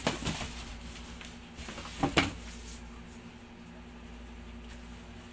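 Cardboard box being handled as a motorcycle helmet in a cloth bag is pulled out of it: rustling and a couple of sharp knocks about two seconds in, over a faint steady hum.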